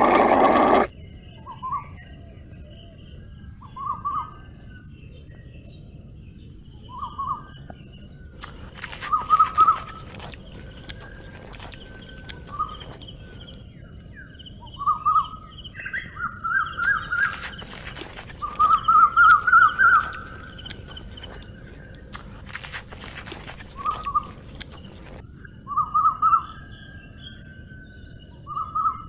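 Short animal calls repeated about a dozen times, each a quick rattle of notes, the longest run a little past the middle, over a steady high hiss.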